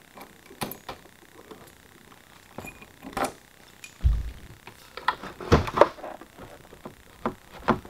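Scattered clicks and clunks from a newly installed HEOSolution add-on security lock on a Mercedes Sprinter van door being tested: the lock worked by hand and the door handle pulled. There is a dull thump about four seconds in and a cluster of knocks a second later.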